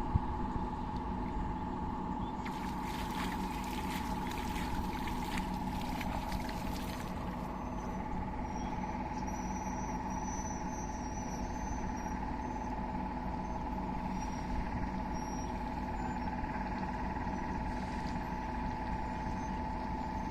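A steady, even hum runs throughout. About two and a half seconds in comes a spell of splashing and trickling water that lasts some four seconds.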